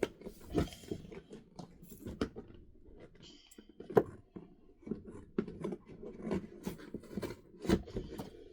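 Toy box packaging being worked open by hand: irregular crinkles, taps and scrapes of cardboard and plastic, with one sharp click about four seconds in.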